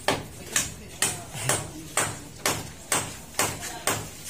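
Hammer striking repeatedly and evenly, about two blows a second, each with a short metallic ring.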